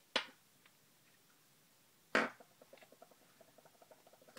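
Small metal flashlight parts, the tail cap and AA batteries, being set down on a hard countertop. There is a sharp clack just after the start and a louder one about two seconds in, followed by a quick run of faint light ticks.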